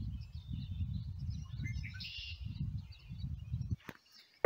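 Birds chirping and twittering over a low, uneven rumble, which cuts off abruptly near the end, followed by a single sharp click.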